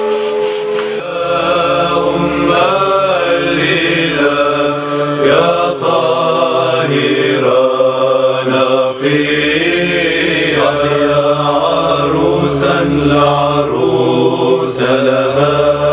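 Byzantine chant at Orthodox Vespers: a chanted, gliding melody sung over a steady low drone. Bell-like ringing tones cut off about a second in.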